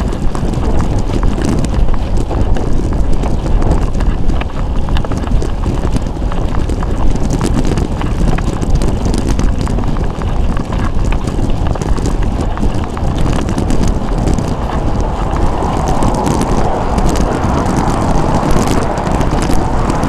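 Wind buffeting the microphone of a bike-mounted camera on a road bike under way, with rumble from the road and frequent small rattles. A hiss swells over the last few seconds.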